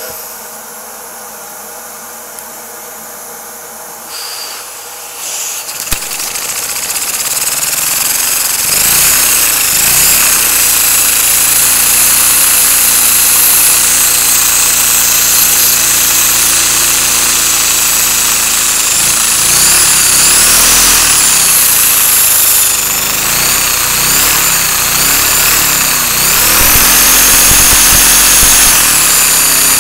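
LEGO Power Functions M motor spinning at high speed, driven by a LEGO vacuum engine and heard with the microphone right under it: a high whine that sounds like a supercharger, over a fast mechanical rattle. After a quieter steady hiss and a click about six seconds in, it winds up, and its pitch rises and falls several times.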